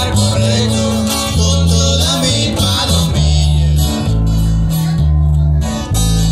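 Small live band playing: acoustic guitars strumming over deep bass notes that change about once a second.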